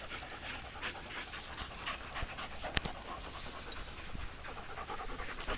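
A dog panting with quick, even breaths, and one sharp click about halfway through.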